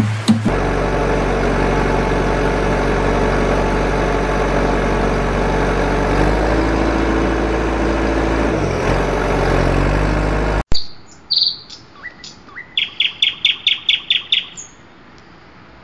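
A heavy engine running steadily with a dull rumble, its pitch shifting about six seconds in and again near nine, then cutting off suddenly. A bird then chirps in a quick run of about a dozen short calls.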